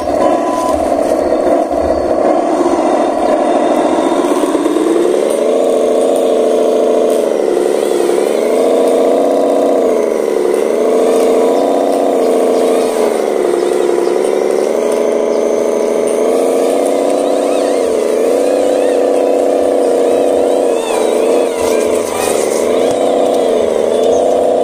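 Radio-controlled model dump truck loaded with mud, driving up a dirt slope. Its drive makes a steady whir that rises and falls in pitch every couple of seconds as the throttle is worked.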